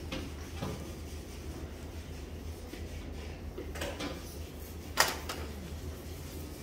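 Steady low hum with a few scattered short knocks or clicks; the sharpest and loudest comes about five seconds in.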